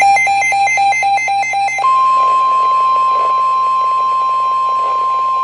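NOAA Weather Radio alert audio: for about the first two seconds, a rapid electronic beeping that switches between a low and a high pitch about four times a second. Then comes the steady single-pitch 1050 Hz Weather Alert Tone, which signals that a warning broadcast follows.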